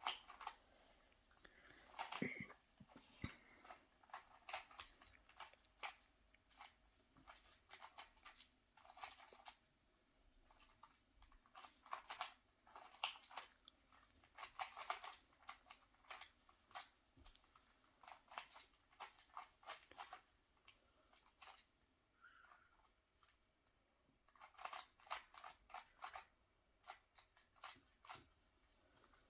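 Faint quick runs of plastic clicks and clacks as the layers of a magnetic GAN 356 M speed cube are turned, with short pauses between runs and longer quiet spells about ten and about twenty-two seconds in.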